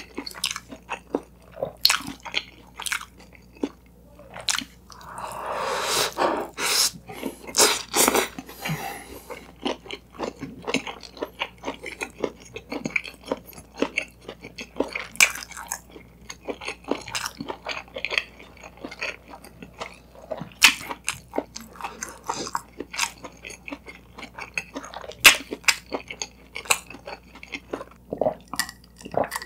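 Close-miked ASMR eating sounds: chewing of an Isaac Toast sandwich (toasted bread with egg and shredded cabbage), with wet mouth noises and crunches in an irregular run of clicks. A brief rustle about five seconds in, and a sip from a mug near the end.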